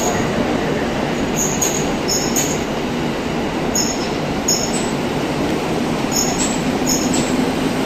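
E233-series electric train pulling out and rolling past at low speed: a steady rumble of the cars going by, with short high-pitched wheel squeals recurring every second or so.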